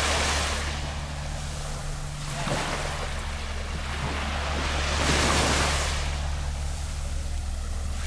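Gentle waves lapping on the beach, rising in three soft surges about two and a half seconds apart and washing back between them. A steady low hum runs underneath.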